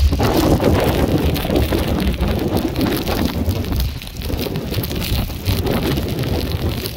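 Squall-line wind gust along a cold front striking suddenly: loud gusting wind buffeting the microphone, with snow pellets pattering on the car body.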